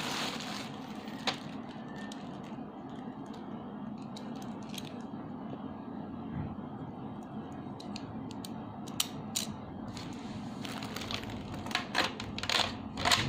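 Scattered plastic clicks from a DX Gaburevolver toy being handled, over a steady background hiss. The clicks come more often near the end.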